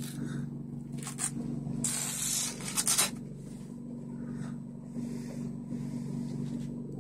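A sanitary pad being torn open and pulled apart layer by layer, with the soft cover and the plastic film inside rustling and ripping in several bursts, the longest and loudest about two to three seconds in. A steady low hum runs underneath.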